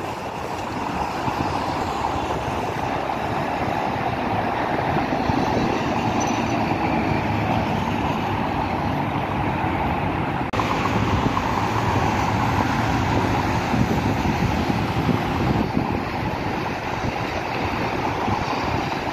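Steady road traffic on a multi-lane highway: a continuous wash of car, bus and motorcycle engines and tyres passing. The sound shifts abruptly about ten seconds in.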